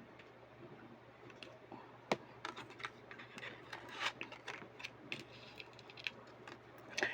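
Faint, irregular clicks and taps of tarot cards being handled while the next card is drawn. One sharp click comes about two seconds in, and small clicks follow unevenly.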